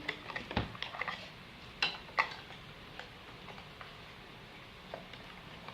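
A new cellphone's box and packaging being handled: scattered light clicks and taps, the sharpest pair about two seconds in, then a few fainter ticks.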